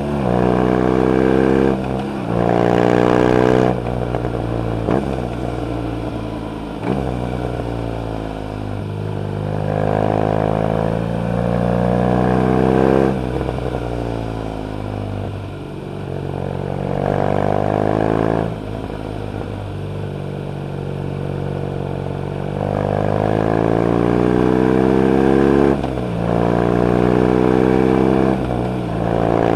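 BMW R nineT Urban G/S's 1170 cc air/oil-cooled boxer twin running under load, its pitch climbing as it revs up and then dropping back at each gear change or roll-off, several times over.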